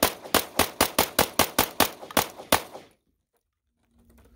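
Glock 17 Gen 1 reproduction 9mm pistol fired rapidly, about a dozen shots at roughly five a second. The string stops about three seconds in.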